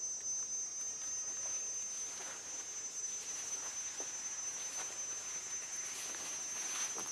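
An insect's steady high-pitched trill, with a few faint rustles.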